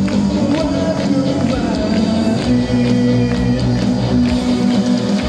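Live rock music played loud over a PA, electric guitar over a steady beat, with the audience clapping along in time.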